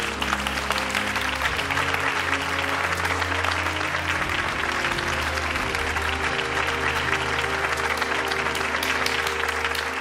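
Sustained applause, many hands clapping, with music of long held low notes playing underneath.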